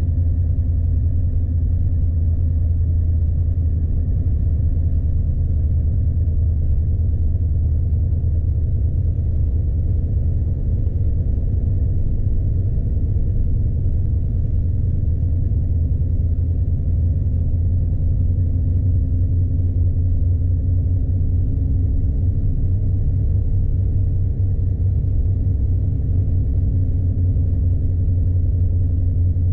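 Scania truck's diesel engine and tyre noise heard from inside the cab, a steady low drone as the loaded truck drives slowly on a snowy road.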